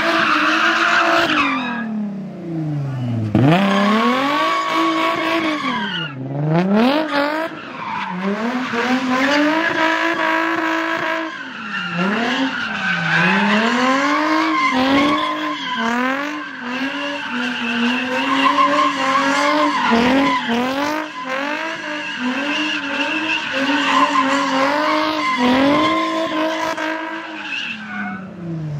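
A car drifting or doing donuts: the engine is held at high revs, its pitch dropping and climbing again over and over, with tires squealing against the pavement.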